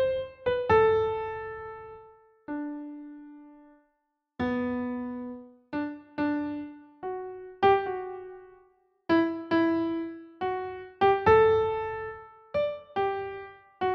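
Slow, gentle piano melody: single notes struck one at a time and left to ring and fade, with brief pauses between phrases.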